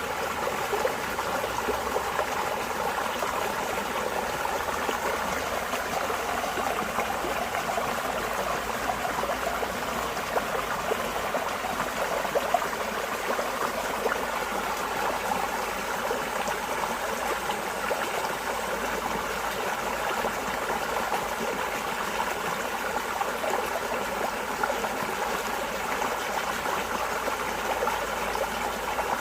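Running water flowing and trickling steadily, a dense, even patter of small splashes.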